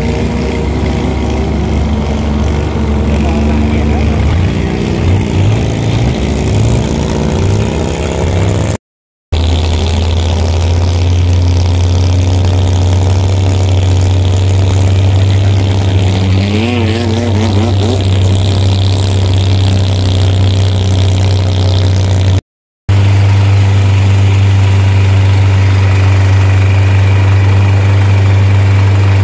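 Longtail boat engine running steadily at speed, a deep even hum. Past the middle, a second engine's pitch wavers briefly as another longtail boat runs close by. The sound cuts out briefly twice.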